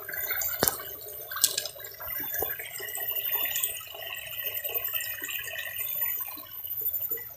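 Water trickling and splashing in a shallow stream, with a couple of sharp clicks about a second in.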